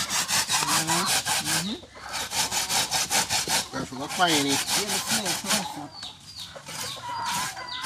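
Coconut being grated on a hand grater: fast, even rasping strokes, about five a second, slackening in the second half.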